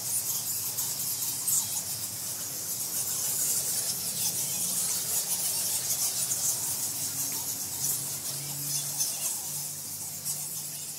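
A colony of roosting bats squeaking continuously. Many high-pitched calls overlap into a dense chatter.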